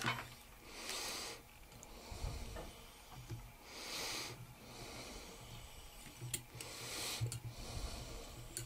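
A person breathing close to the microphone, a soft hissy breath about every three seconds, with a couple of small sharp clicks in between.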